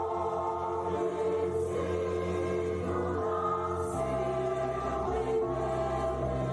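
Background music: held chords over a steady bass line, changing chord about four seconds in.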